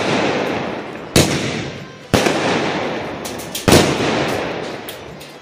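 Aerial firework shells bursting: three sharp bangs, the second about a second after the first and the third a second and a half later, each fading away slowly.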